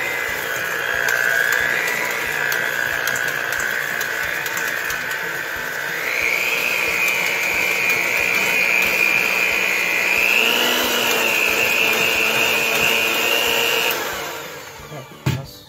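Cuisinart electric hand mixer running with its beaters in a stainless steel bowl, beating cream cheese and sugar smooth. Its steady motor whine rises in pitch about six seconds in and again near ten seconds, then stops about fourteen seconds in.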